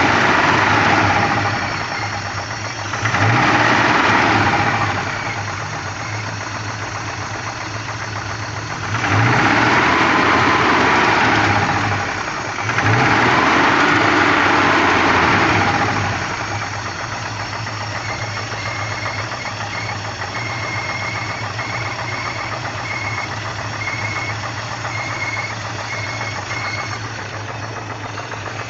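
Peugeot 505 engine revved gently four times at low rpm, each rise lasting a couple of seconds, then idling steadily. It is run to track down an intermittent 'taca taca' knock that the owner suspects.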